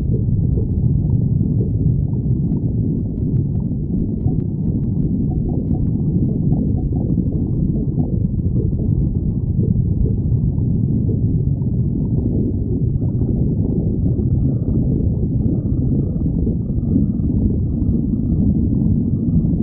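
A person's stomach growling: a continuous, loud, low rumbling that goes on without pause.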